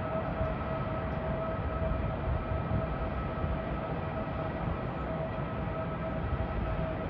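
Trenord passenger train rumbling across a steel truss railway bridge, a low uneven rumble with a steady high whine held over it.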